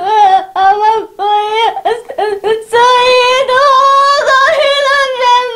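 A woman wailing in grief in a high, sing-song lament: a run of short sobbing cries, then one long drawn-out wail.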